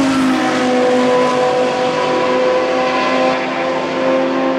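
Several Grand-Am race car engines running through a wet turn and accelerating away, their sounds overlapping, with the pitch rising slowly.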